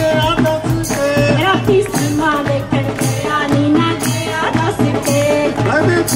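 Punjabi folk song sung into a microphone, a wavering melody over a steady beat with jingling percussion.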